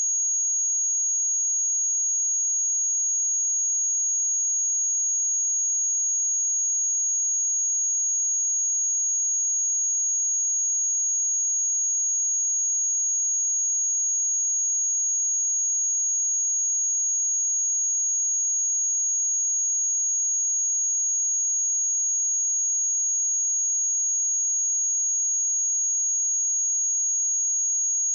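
A pure 6632 Hz sine-wave test tone, a single high-pitched whistle held at one pitch and one level without a break.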